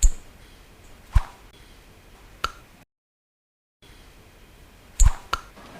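Five sharp, short knocks or slaps over a faint background, three spaced about a second apart and then, after about a second of dead silence, a pair close together near the end.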